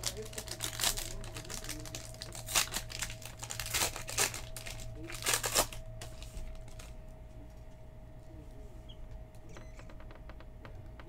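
Foil trading-card pack wrappers crinkling and tearing as a pack is ripped open by hand, in several loud bursts over the first six or seven seconds, then quieter handling with light clicks as the cards come out.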